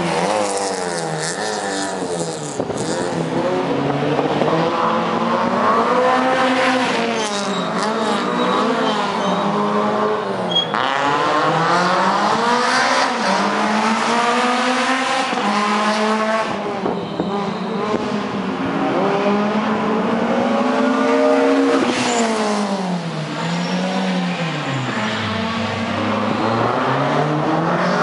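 Rally car engines revving hard. The pitch climbs and drops again and again as the cars accelerate, shift and slow through the stage.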